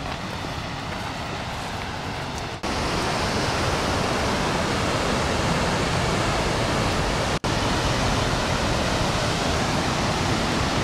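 Steady rush of fast-moving water, like a waterfall or torrent. It gets louder a couple of seconds in and cuts out for a moment about two-thirds of the way through.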